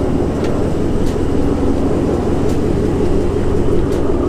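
A car running, a steady loud low rumble of engine and road noise.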